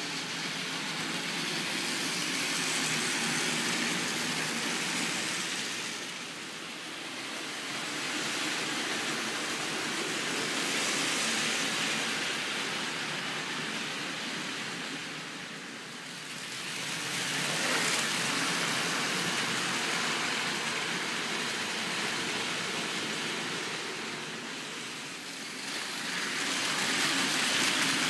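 Battery-powered Plarail toy trains, among them locomotives hauling a 100 Series Shinkansen set, running on plastic track: motor and wheel noise that swells and fades about four times as trains pass close by.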